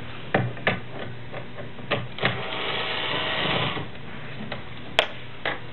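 A small electric motor whirs for about a second and a half near the middle, among scattered sharp clicks and knocks of tools being handled.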